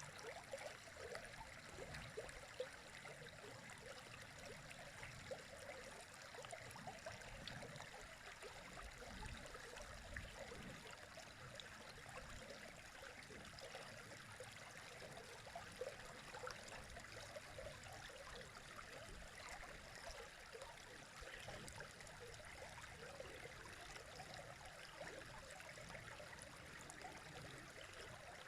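River water running: a quiet, steady rush with small irregular splashes flickering through it.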